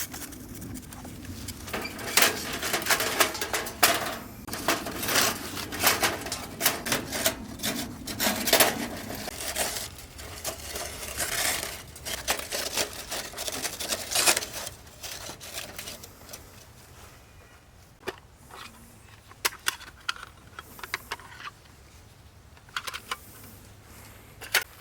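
Quick, irregular clicks, knocks and clinks of small hard objects being handled. They come thick and fast for the first half, then thin out to occasional single clicks.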